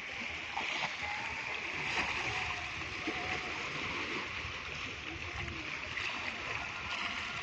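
Sea surf washing on the shore: a steady rush of water noise, with faint distant voices.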